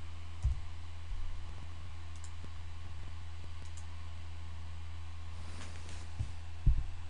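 A few computer mouse clicks, with the loudest near the end, over a steady low electrical hum.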